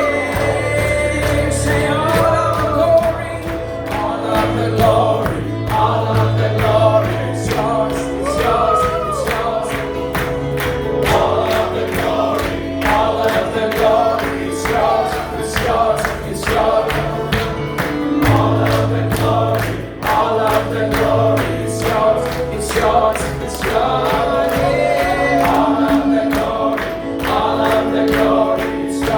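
Gospel music with a choir singing over a steady beat and sustained bass.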